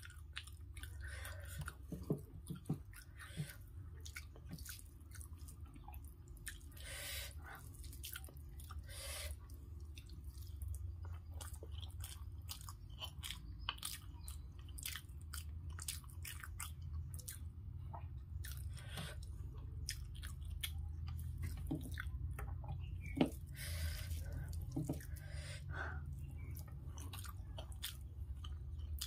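Close-miked chewing and wet mouth sounds of a person eating rice and dal by hand, with many short smacking clicks, over a steady low hum.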